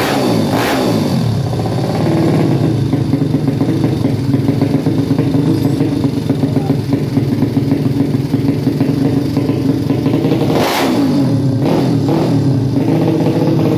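A horizontal single-cylinder four-stroke motorcycle engine with an open racing exhaust, run up during tuning. The throttle is blipped a few times at the start and the revs fall back, then the engine holds a steady speed. Near the end it is blipped twice more.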